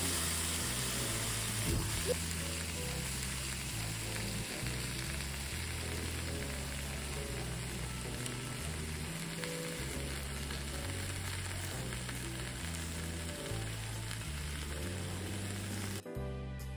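Steady hissing sizzle of a hot stone dish under a wagyu roast as it steams and flares with flames. The sizzle cuts off suddenly near the end, with soft background music throughout.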